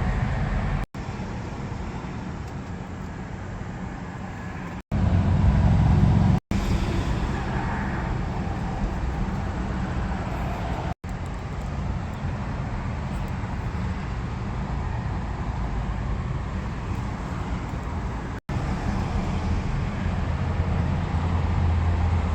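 Steady low vehicle and traffic rumble, broken by several brief total dropouts where edited clips are joined.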